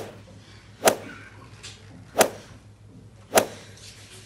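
Four sharp slaps about a second apart: an open hand slapping a person's cheeks.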